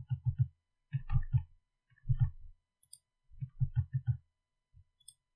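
Computer mouse clicking during work in Blender, in four or five short quick runs of several clicks each, with pauses between the runs.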